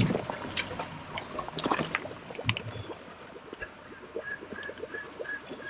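River water trickling and gurgling around a drifting boat, with a few knocks in the first two seconds. Near the end a short high note repeats about three times a second.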